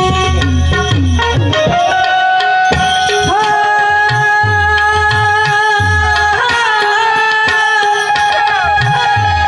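Instrumental passage of a Gujarati prabhatiyu devotional song: harmonium playing long held notes while a tabla keeps a steady rhythm of low drum strokes.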